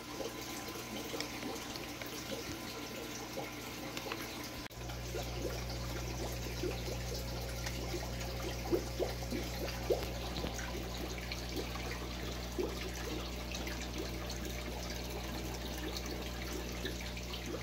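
Aquarium water trickling and bubbling in a small tank room, with small splashy blips throughout. A steady low hum comes in about five seconds in.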